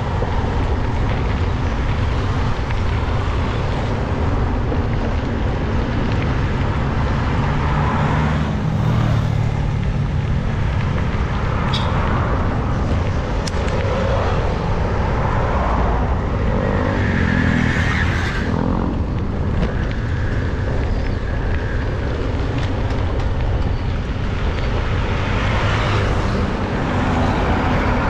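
Road traffic passing close by on a two-lane road: cars and vans going by one after another, with louder passes about a third of the way in, around the middle and near the end, over a steady low rumble.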